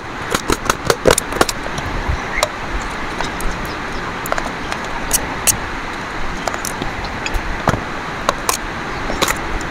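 Kitchen knife cutting vegetables on a steel plate, the blade tapping the metal in irregular sharp clicks, bunched in the first second or so and again near the end, over a steady background noise.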